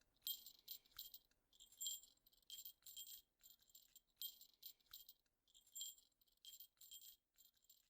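A small jingle bell, faintly jingling in short, uneven shakes, two or three a second, like a cat's collar bell while walking.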